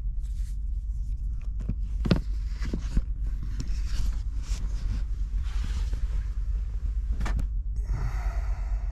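Rustling, clicks and a couple of knocks as someone gropes about in a dark lorry cab for the light switch, over a steady low hum.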